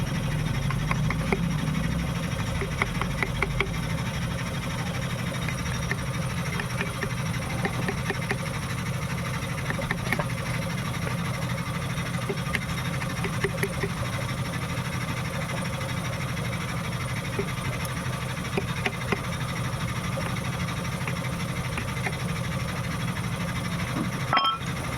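A small engine running steadily, with scattered light clicks and taps over it.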